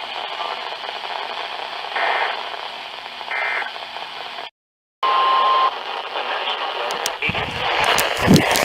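NOAA Weather Radio receiver hissing with static, with two short bursts of digital data tone about two and three and a half seconds in, typical of the SAME end-of-message code. After a brief dropout there is a short steady beep-like tone, then loud crackling static with sharp pops near the end.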